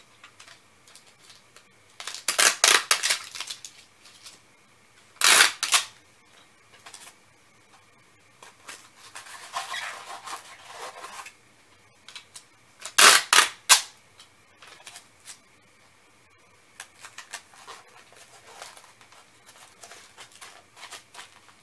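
Packing tape being pulled off the roll in three loud rips, about two, five and thirteen seconds in, as a box is taped around. Quieter handling of cardboard and paper falls between the rips.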